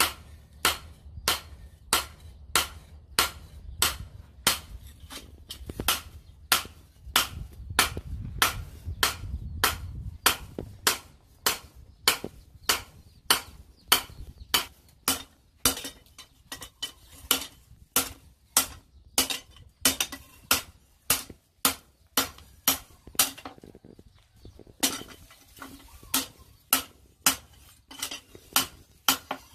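Hand hammer striking an axe head on a steel anvil post in a steady rhythm, about two blows a second, each with a short metallic ring; the blows pause briefly a few seconds before the end.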